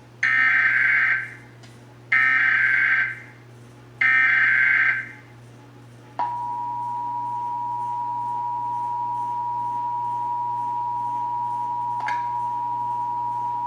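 Emergency Alert System test: three roughly one-second bursts of SAME digital header data, about two seconds apart, then about six seconds in the steady two-tone EAS attention signal (853 and 960 Hz sounded together), held to the end.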